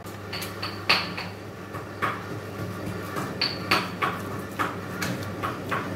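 Hands working a minced-beef kebab mixture in a steel plate, with a dozen or so light metallic clinks and taps against the plate, some with a brief ring, over a steady low hum.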